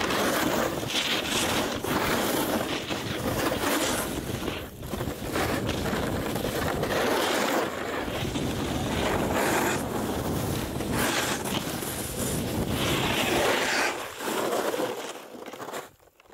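Wind buffeting the camera microphone as it follows a snowboarder at speed, mixed with the board sliding and scraping over snow, in uneven surges. The rushing dies away near the end.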